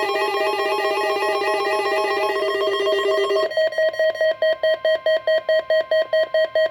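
Electronic synthesized tones: a fast, stepping, arpeggio-like run of beeping pitches, which about three and a half seconds in changes to a tone beeping about four times a second over a steady higher tone.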